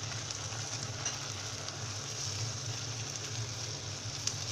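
Chicken and onion pieces sizzling in a frying pan in their cooking liquid while being turned over, a steady sizzle with small scattered clicks over a low steady hum.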